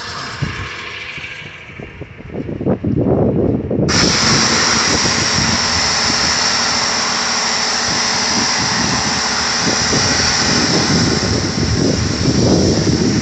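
Landa 3000 PSI pressure washer's electric pump running. About four seconds in, the spray gun opens and a steady hiss of the high-pressure water jet striking concrete takes over.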